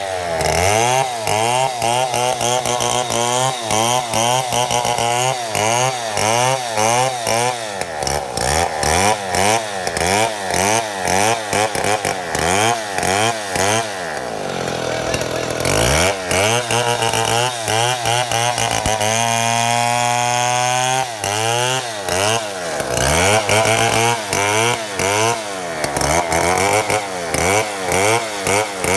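Two-stroke chainsaw cutting through a mahogany log in a chainsaw mill, its engine speed rising and falling about once a second. About halfway through the revs drop low and climb back, and a little later they are held high and steady for a couple of seconds.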